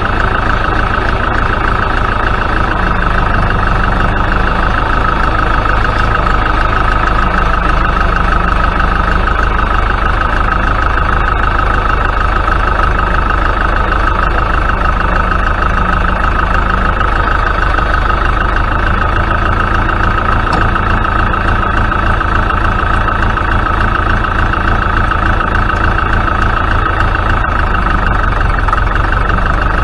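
Tractor engine running steadily while pulling a six-furrow plough, with a constant high whine over the engine note.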